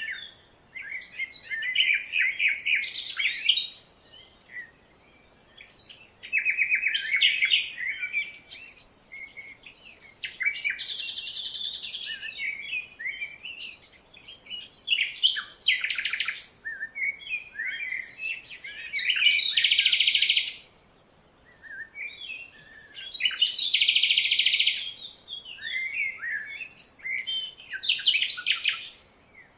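Several birds singing and calling: bursts of chirps, fast trills and rapidly repeated high notes, with short pauses between phrases.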